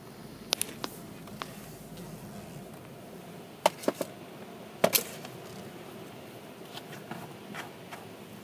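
Steady low background hum inside a car cabin, with a few sharp clicks and knocks scattered through it, the loudest a cluster about three and a half to five seconds in.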